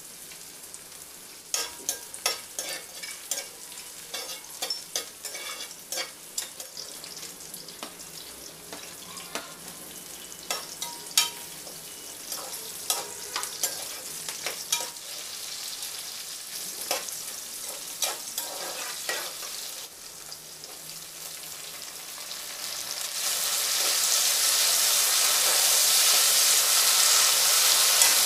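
Whole spices and sliced onion frying in oil in an aluminium pressure cooker, with scattered sharp crackles and taps of a metal spoon stirring against the pot. Near the end a loud, steady sizzle rises as mint leaves go into the hot oil.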